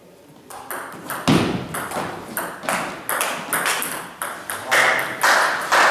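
Table tennis rally: the ball clicks rapidly off paddles and table, about three hits a second, starting about half a second in. A few louder, drawn-out rushing noises come near the end.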